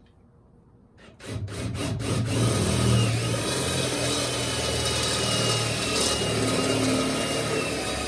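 Cordless drill with a step bit boring through a metal headlight bucket: a few short stuttering starts about a second in, then a steady run of drilling.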